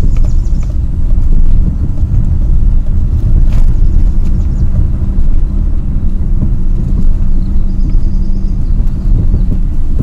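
Car driving slowly on a rough country lane, heard from inside the cabin: a steady low rumble of engine and tyres on the road, with faint short high chirping a few times.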